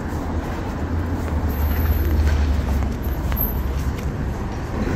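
City street traffic: a car passing close, its low engine and tyre rumble swelling and fading in the middle of the stretch.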